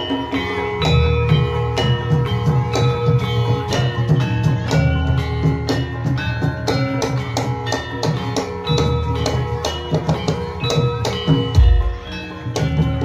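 Javanese gamelan-style music: drums with struck metal-keyed percussion ringing notes in a quick, steady rhythm, and one heavy low drum or gong stroke near the end.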